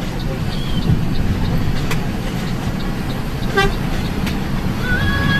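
Bus engine running steadily, heard from inside the cabin, with one short horn beep about three and a half seconds in. Music starts up near the end.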